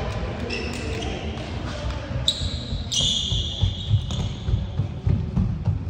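Gym sounds between volleyball rallies: a ball bouncing on the hardwood floor, high squeaks about a third of the way in and again from about halfway, and players' voices echoing in the hall.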